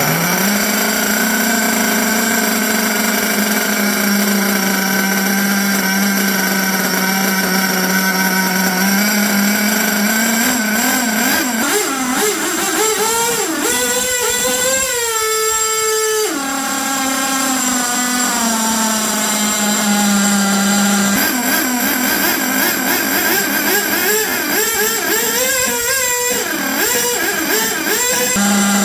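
HPI Savage X 4.6 nitro RC truck's small two-stroke glow engine, breathing through an aluminum tuned pipe, idles steadily, then is revved up slowly and eases back down, twice. The owner takes its running for slightly lean, with the engine prone to cutting out.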